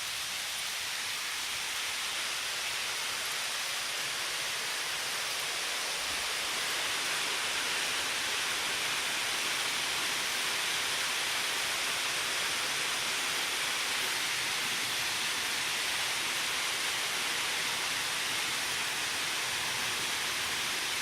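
Steady rush of fast-running river water, growing a little louder about six seconds in.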